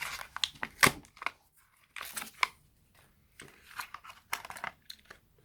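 A Hot Wheels blister pack being torn open by hand: irregular crackling and ripping of the plastic blister and cardboard card as it resists, with the sharpest snap about a second in.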